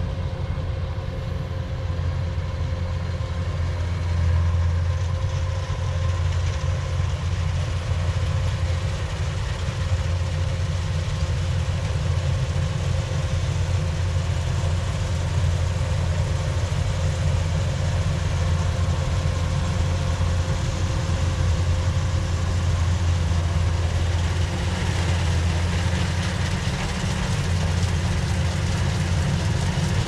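Rice combine harvester running steadily as it harvests: a continuous low engine hum with a faint steady whine above it.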